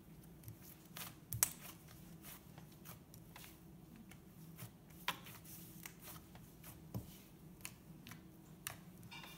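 Hands stretching, folding and squeezing a soft, buttery blue slime, making faint irregular sticky clicks and small pops, the strongest about one and a half seconds in and about seven seconds in.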